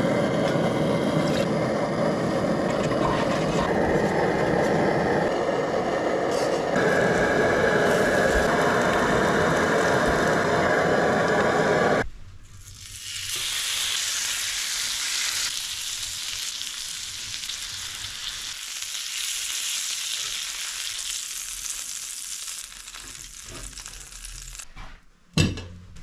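A lit canister camp stove's burner rushing steadily. About twelve seconds in it cuts to duck breasts and pork jowl sizzling on a hot griddle atop a wood stove, the hiss fading over the following seconds. A single sharp knock near the end.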